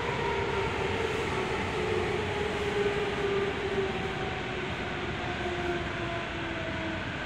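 Running noise inside a Toyo Rapid Railway 2000 series electric train car: steady rumble of wheels on rails with a motor whine slowly falling in pitch as the train slows on its approach to a station.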